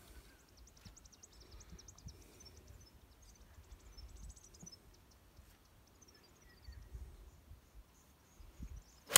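Faint bird chirps trill high and fast over a low wind rumble, then near the end a single sharp crack of an iron club striking a golf ball, the loudest sound here.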